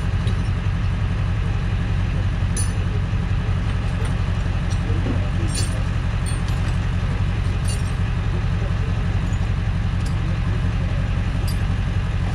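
Tow truck engine idling steadily, with a few light clicks and knocks scattered through it.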